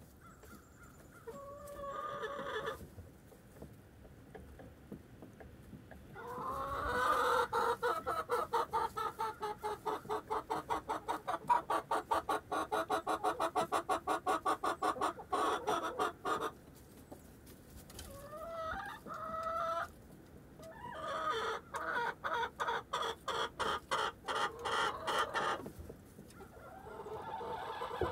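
Domestic hens clucking: two long runs of rapid, evenly repeated clucks at about four or five a second, with a few shorter single calls between them.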